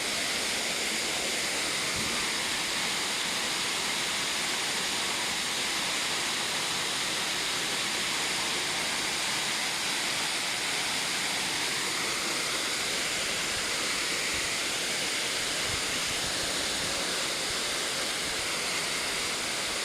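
Steady rush of a waterfall over 100 metres high, its falling water giving an even hiss with no change.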